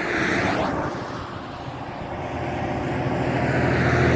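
Highway traffic: tyre noise of a vehicle going by at the start, then the low drone of an approaching tractor engine, growing steadily louder toward the end.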